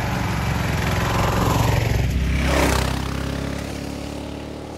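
Kawasaki KLR 650 single-cylinder four-stroke engine passing close by. It grows louder, drops in pitch as it goes by about two and a half seconds in, with a burst of tyre noise on gravel, then fades as the bike rides away.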